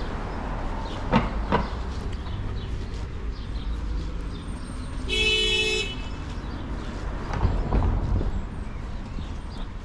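A vehicle horn honks once, a short single-pitched toot under a second long, about halfway through. It sounds over a steady low rumble of street traffic, with a few sharp knocks near the start and again near the end.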